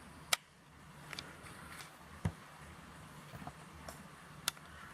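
Faint room tone with a low steady hum, broken by a few sharp clicks from handling the camera while it zooms in.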